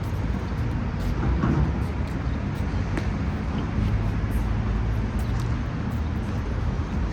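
Steady low rumble of outdoor city traffic, with a faint sharp knock about three seconds in.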